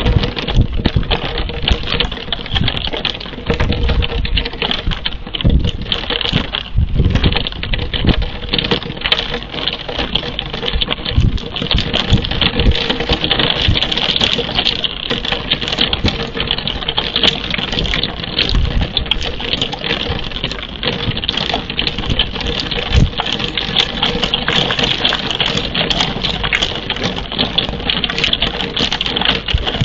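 Rain falling on and around a nest-box camera microphone: a dense, continuous crackle of small drop hits, with irregular heavier thumps from larger drops striking close to it.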